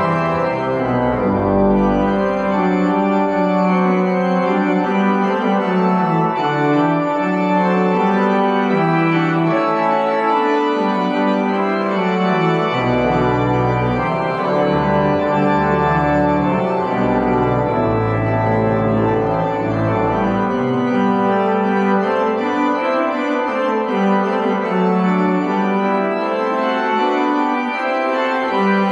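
Church organ playing the postlude after the dismissal, in slow sustained chords, with deep pedal notes coming in partway through and dropping out later.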